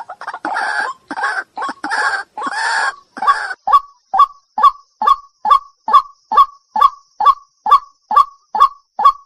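White-breasted waterhen calling: a run of harsh, croaking notes for about the first three seconds, then a steady series of short clipped notes, about two a second.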